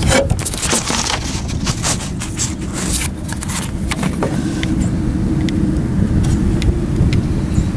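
Car engine of a 1994 Oldsmobile Cutlass Ciera running with a steady low rumble, now that power to the fuel pump has been restored. Sharp clicks and knocks come over it in the first few seconds.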